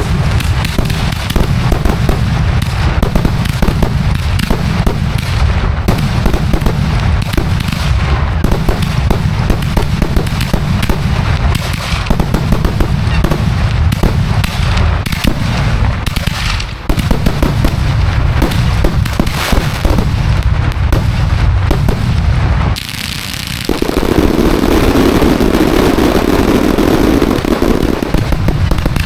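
Dense barrage of backyard fireworks in a grand finale: rapid, overlapping booms and cracks with no break. About twenty-three seconds in it dips briefly, then comes back louder and denser.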